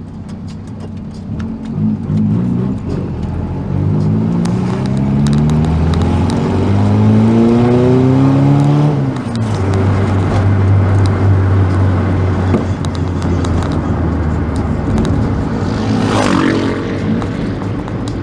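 Volkswagen Gol's engine and loud aftermarket JK exhaust under way: the exhaust note climbs steadily for several seconds as the car accelerates, drops sharply about nine seconds in, then drones steadily, with a brief rev near the end.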